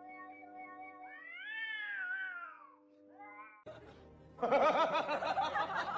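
A cat giving one long drawn-out meow that rises and falls, then a short second meow, over a steady held musical tone. Louder music comes in near the end.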